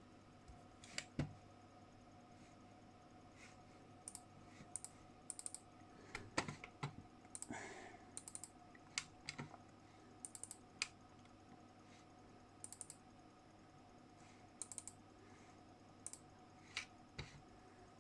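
Irregular keystrokes on a computer keyboard, short clicks coming singly and in small clusters, over a faint steady electrical hum.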